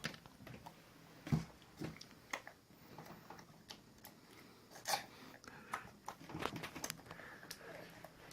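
Scattered light clicks and crinkles of small objects handled by hand, the sort made by unwrapping and opening a chocolate egg with its plastic toy capsule; the sharpest clicks come about a second and a half in and near five seconds in.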